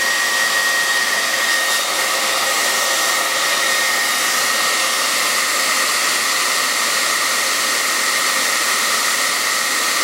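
Handheld hair dryer running steadily: a constant rush of blowing air with a thin high whine.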